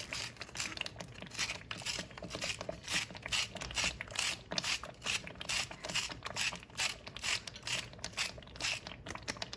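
Thick shiro stew bubbling in the pot, with an uneven run of soft crackling pops, several a second.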